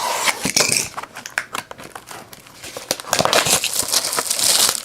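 Plastic wrapping crinkling and tearing as a box of trading cards is opened, with small clicks and rustles, and a denser stretch of crinkling in the last couple of seconds.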